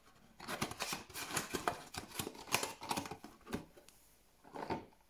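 Cardboard trading-card box being opened and handled: a quick run of light scraping, rustling and tapping of card stock that stops shortly before the end, with a couple more taps near the end.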